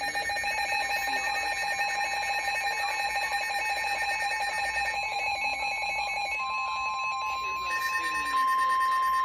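Several weather-alert radios sounding their alarms at once for a severe thunderstorm warning: a loud, rapidly pulsing electronic beeping in a few steady pitches, joined about six seconds in by a steady single-pitch warning tone that is loudest near the end.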